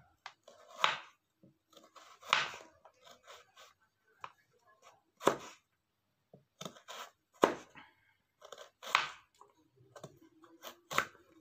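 Kencur (aromatic ginger) rhizome being sliced with a knife: about a dozen separate chops at an uneven, unhurried pace, roughly one a second.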